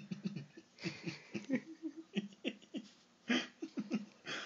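A person giggling and laughing in short breathy bursts.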